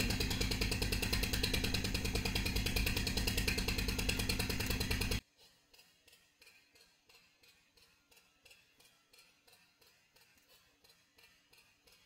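A steady mechanical drone with a fast, even pulse, like a motor running, for about five seconds; then the sound cuts off abruptly to near silence.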